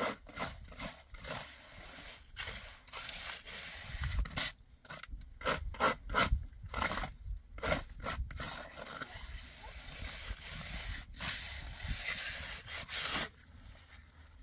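Hand trowel scraping and rubbing across wet cement in short, irregular strokes with brief pauses, smoothing a freshly laid floor.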